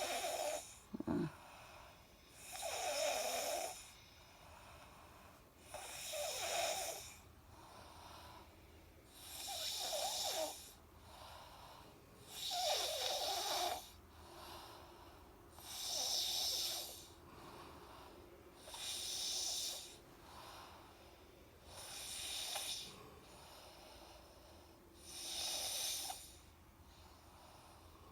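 Person snoring in a regular rhythm, a raspy snore on each in-breath about every three seconds, eight times in all.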